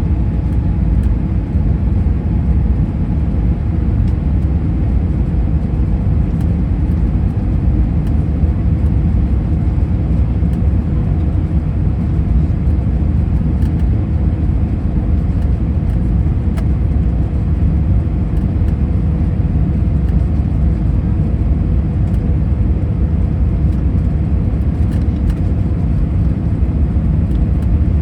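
Steady low cabin rumble of an Airbus A319 airliner in flight, engine and airflow noise heard from inside the cabin, with a faint steady hum above it.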